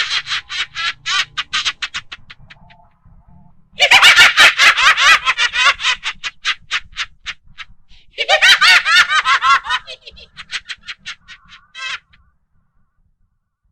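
Very high-pitched, rapid laughter in three bouts. Each bout starts loud and trails off into quick separate pulses, and it stops about twelve seconds in.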